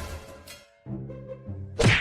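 Background music with sudden hit-like effects, one fading at the start and another loud one near the end.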